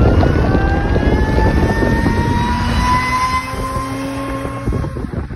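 Supercharged Infiniti G35 sedan's VQ35 V6 accelerating hard, its pitch rising steadily for about four and a half seconds before breaking off near the end.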